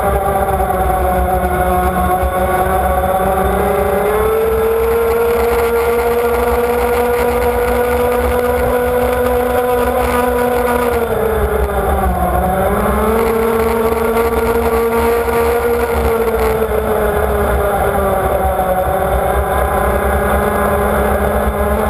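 Powerboat engine running at speed, heard close up from the boat's own deck, with the rush of water under the hull. Its pitch holds steady, dips for a moment about twelve seconds in, then climbs back up.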